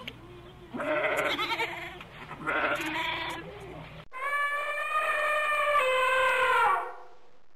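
Boer goat bleating twice, each call wavering and lasting about a second. About four seconds in the sound cuts to a long, steady pitched call or tone of several clear notes, with a short break in the middle.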